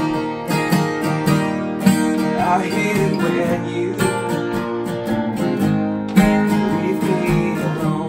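Two steel-string acoustic guitars strummed and picked together in a steady country-folk rhythm.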